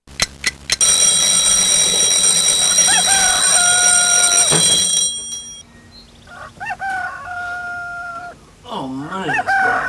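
Mechanical twin-bell alarm clock ringing loudly for about four seconds, with a rooster crowing over it. The ringing stops suddenly and the rooster crows again.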